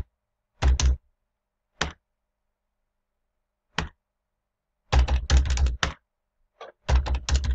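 Computer keyboard typing in short bursts while numbers are entered. A few single keystrokes come with long gaps, then there is a quick run of keys about five seconds in and another near the end.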